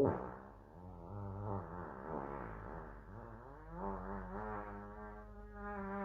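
Long, drawn-out fart sound effect: a buzzy, pitched rasp that starts suddenly and keeps wavering up and down in pitch.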